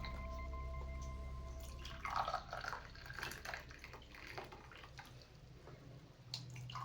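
Hot kadha being strained into a glass: liquid pouring and dripping through a strainer in small irregular splashes from about two seconds in. Faint background music fades out before the pouring starts.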